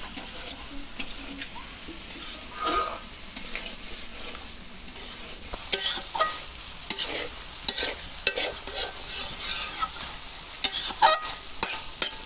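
Chicken sizzling in oil in a kadai as a metal spatula stirs and scrapes it against the pan, with irregular scrapes and clinks over the steady sizzle, the loudest about eleven seconds in. This is the dry-frying (kosha) stage, the meat browning with the spices.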